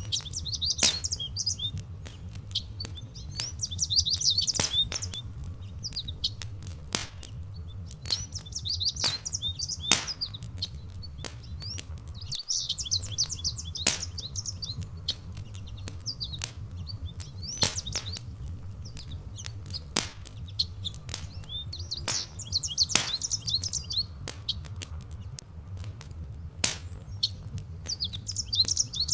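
Wood fire crackling with frequent sharp pops, while a songbird sings a short, bright, twittering phrase about every four to five seconds. A low steady rumble runs underneath.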